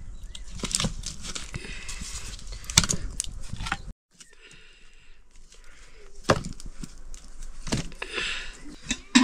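Irregular wooden knocks and taps, with a brief dropout to silence about four seconds in.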